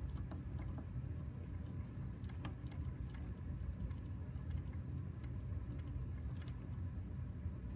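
Faint, irregular plastic clicks as the screw of a 3D-printed PLA scale jack is slowly wound by a hand-turned wrench, over a steady low hum.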